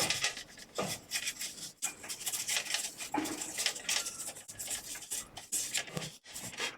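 Irregular rubbing and scraping strokes on a PS5's plastic cover as it is being cleaned, with a few soft knocks.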